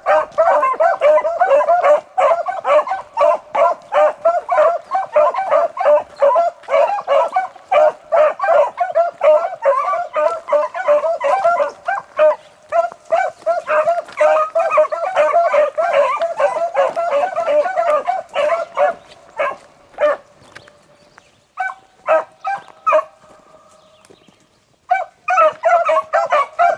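A pack of beagles baying in rapid, overlapping yelps as they run a rabbit's track. The chorus thins out about two-thirds of the way in, stops briefly, and picks up again near the end.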